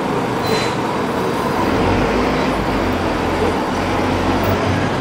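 Steady street traffic noise: the continuous rumble of passing and idling motor vehicles.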